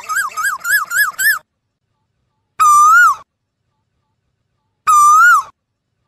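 Asian koel calling: a quick run of short whistled notes, each rising and falling, that stops about a second and a half in, then two single drawn-out calls, each holding a note, lifting and then dropping, about two seconds apart.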